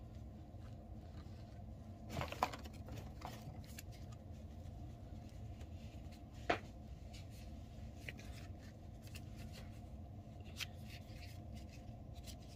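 Faint handling sounds of a microfiber towel and foam applicator sponge being folded and tucked together: soft rustling with a few light clicks, the sharpest about halfway through, over a steady low room hum.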